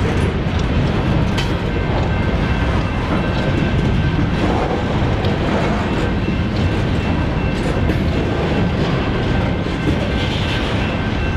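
Union Pacific freight train's cars rolling through a grade crossing: a steady, unbroken rumble of steel wheels on rail.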